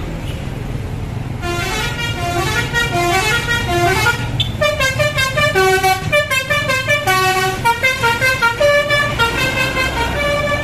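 Bus telolet horn, a Basuri multi-tone air horn, playing a quick tune of short stepped notes over the rumble of the bus's engine; the tune starts about a second and a half in.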